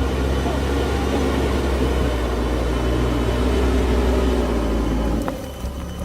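Diesel engine of a JCB backhoe loader running steadily under work. It drops away briefly near the end, then comes back.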